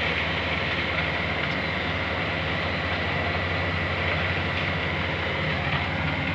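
Heavy diesel machinery running steadily during concrete pouring work: a constant engine drone with a thin steady whine above it.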